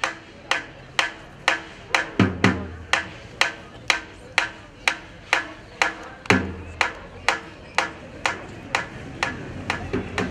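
Percussion rhythm: sharp drum strikes at a steady pace of about two a second, with a deep, booming low stroke about every four seconds.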